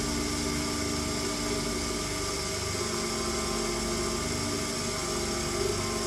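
Proxxon PD 250/e mini lathe running steadily while turning a chromoly steel bar, its motor and drive giving an even mechanical whir.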